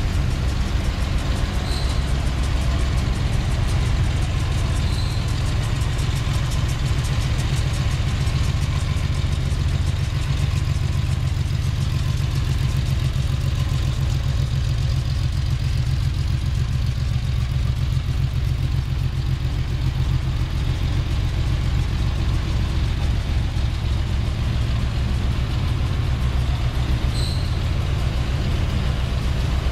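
Ferrari Dino 246 GT's V6 engine idling steadily.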